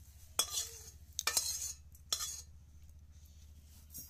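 Metal spatula scraping a cooking pan and clinking on a ceramic plate as cooked okra and potatoes are pushed out: three short scrapes in the first two and a half seconds, then a brief clink near the end.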